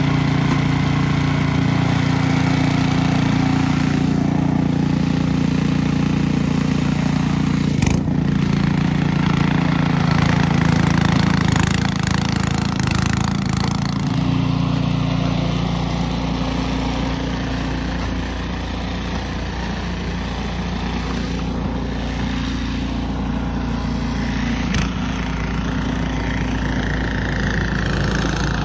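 An engine running steadily, its note shifting down and getting a little quieter about halfway through.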